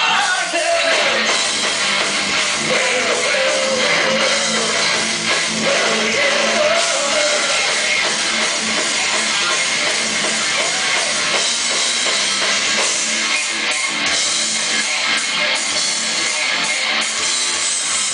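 Heavy metal band playing live: distorted electric guitars and a drum kit, loud and steady, picked up from within the audience.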